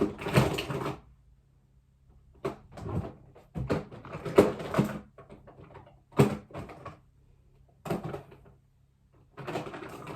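A series of knocks and clattering noises in short, irregular bursts a second or two apart, with quiet gaps between.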